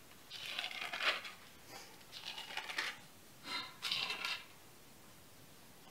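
Thin Bible pages being turned and rustling, three short bursts as the place in the book is found.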